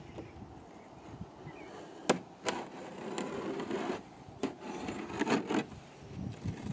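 Utility knife cutting indoor-outdoor carpet and the carpet rubbing as it is worked into place: uneven rasping scrapes, with two sharp clicks about two seconds in.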